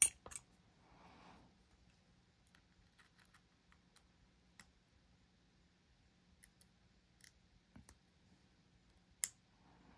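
Faint, scattered metallic clicks and ticks of a lock pick and tension wrench working the pins of a dimple lock, with a sharper click at the very start and another near the end.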